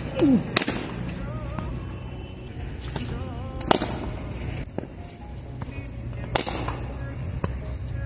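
Cricket bat striking a soaked tennis ball in a concrete practice net: sharp cracks about half a second, three and a half seconds and six and a half seconds in, the middle one loudest, with a fainter knock near the end. A steady high insect chirr runs underneath.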